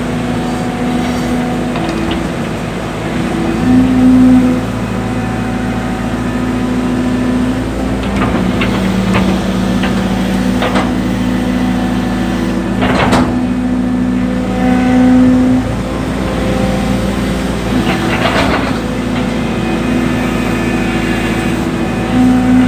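Diesel excavator engine running steadily, its pitch rising now and then as it takes hydraulic load while digging soil. Several short clattering knocks are heard in the middle and later part.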